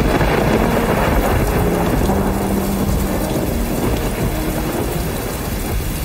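Heavy rain pouring down with a rolling rumble of thunder, the thunder heaviest in the first second or so and easing after.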